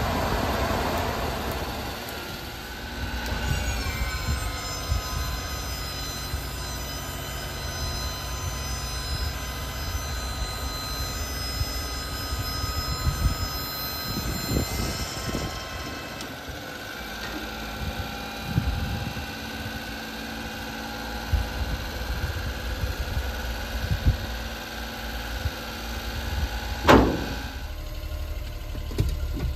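A 1992 Suzuki Carry kei dump truck's engine running steadily at idle. A whine of several steady tones sits over it and changes pitch twice. There is one short, sharp noise near the end.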